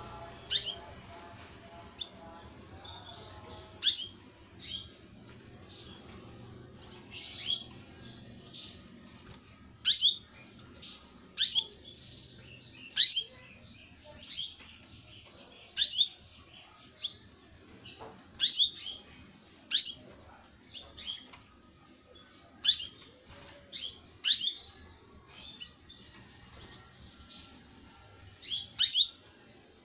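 Young domestic canary giving short, sharp chirps, each a quick downward sweep, repeated about every one to two seconds with softer twittering between.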